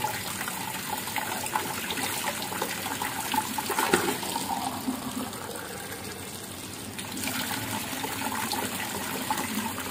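Filtered water running steadily from a tap into a plastic cup held under the stream and splashing over its rim, with a brief louder splash about four seconds in.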